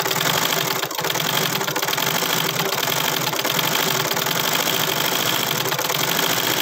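Treadle sewing machine running steadily as it is pedalled by foot, a continuous mechanical clatter, with no needle or thread fitted.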